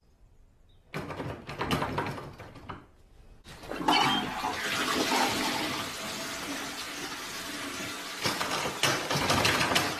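Toilet flushing: a rush of water that starts about three and a half seconds in and runs on, after a shorter, fainter stretch of noise about a second in.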